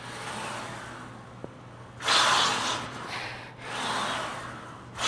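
A man's heavy, forceful breaths while straining through a hard bench press set: a faint breath at first, a loud exhalation about two seconds in, a softer one after it, and another loud one at the end.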